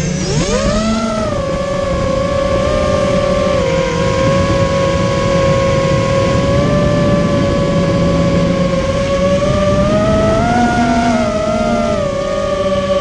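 Immersion Vortex 250 Pro racing quadcopter's brushless motors and propellers whining steadily under throttle. The pitch swoops up about a second in and rises again briefly around ten seconds, then settles.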